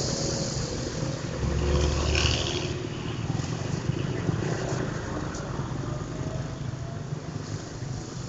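Street traffic going past: engine hum with a slowly gliding pitch, loudest about two seconds in and fading away afterwards.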